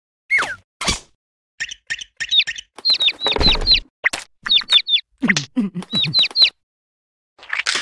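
Cartoon chick peeping: short, high chirps that each drop in pitch, coming in quick runs of three or four. Partway through there is a brief rustling thud, and near the end some low voiced grunts join in.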